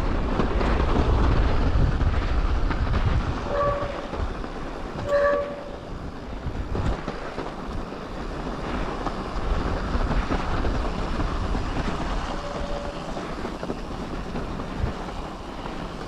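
Wind buffeting the microphone over the rumble of mountain-bike tyres rolling on snow and ice. There are three short squealing tones, two close together about 3.5 and 5 seconds in and a fainter one near 12.5 seconds.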